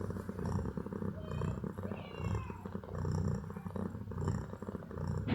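Cat purring steadily, the rumble swelling and fading about once a second with each breath.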